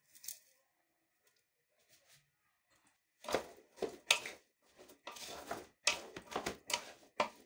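A spatula stirring and scraping moringa root pieces and spices around a large aluminium pot, in irregular repeated strokes starting about three seconds in. Before that there is only a faint clink as crushed spices are tipped in.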